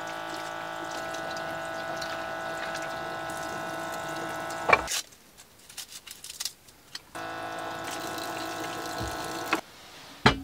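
Small electric water pump of a campervan sink faucet running with a steady whine as tap water runs over vegetables. It switches off with a click about five seconds in, runs again for a couple of seconds, and stops; a sharp knock follows near the end.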